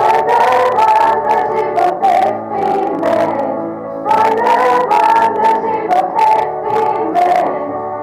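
A group of children singing a song together, with instrumental accompaniment.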